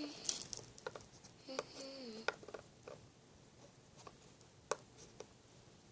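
Light, scattered plastic taps and clicks from small lip-gloss tubes being handled and set in a row, with a child's brief falling hum about one and a half seconds in.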